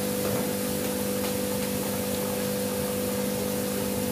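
Steady hum and airy hiss of a running electric motor, unchanging throughout.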